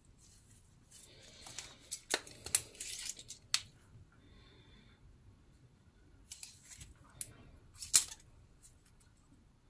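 Handling noise of a steel digital caliper on a wooden knife-handle block held in gloved hands: rustling and the caliper's jaw sliding along its beam, with a handful of sharp clicks as the jaws close on the block, the loudest near the end.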